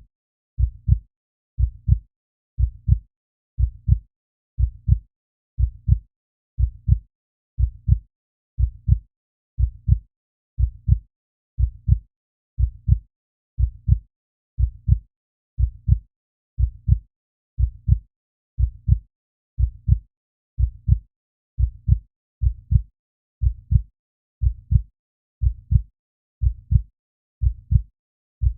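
Heartbeat sound effect: a steady lub-dub, two low thuds close together repeating about once a second, with silence between beats.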